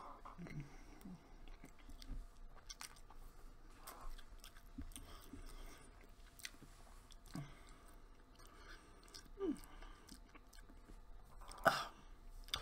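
Faint close-up chewing of a mouthful of a beef, bacon and cheese sandwich on an artisan roll, with small scattered mouth clicks and a brief louder mouth sound near the end.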